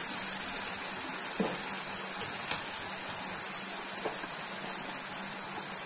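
Ground masala paste sizzling steadily in oil in a kadai over a low flame, a steady hiss with a few faint spits.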